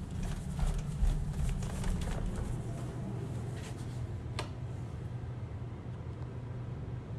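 Footsteps going down a staircase, with the low rumble and rustle of a hand-held phone being carried, soft knocks in the first couple of seconds and one sharper click a little past the middle.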